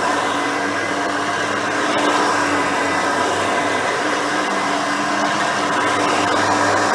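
Hoover Elite 350 upright vacuum cleaner running steadily: its 5-amp motor and seven-bladed fan give a steady whine over the whir of an older-style Cleveland Wood Products brush roll.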